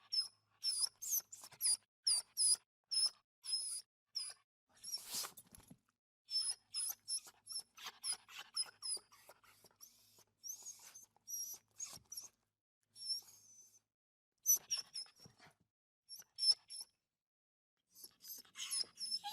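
Puppy crying in a rapid series of short, very high-pitched squeaks, coming in bursts with brief pauses, with a short rustle about five seconds in.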